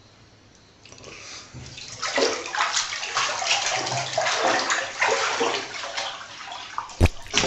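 Running water splashing, as in a bathroom shower or tub, starting about a second in and swelling and fading unevenly. A sharp knock near the end.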